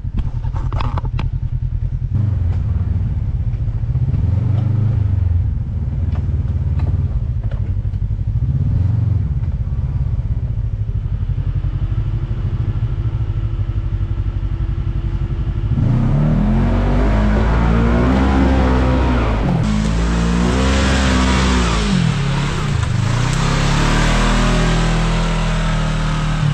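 Side-by-side UTV engine running at low revs, then, about 16 seconds in, revved hard up and down about three times with a loud rushing noise, as the machine is driven at a muddy, rutted climb.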